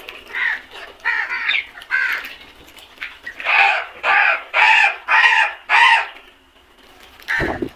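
A flock of crows cawing: a few scattered caws, then a run of five loud caws about half a second apart, and one more caw near the end.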